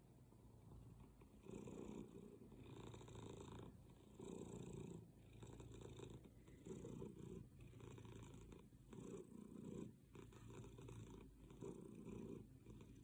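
Domestic tabby cat purring faintly while being stroked, the purr swelling and fading with each breath in and out. It starts about a second and a half in.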